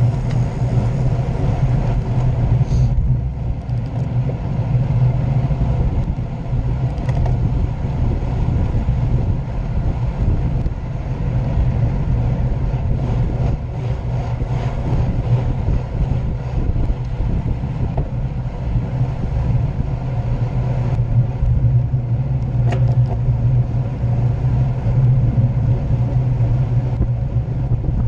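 Steady low rumble of wind on the microphone and road-bike tyres rolling on asphalt at speed.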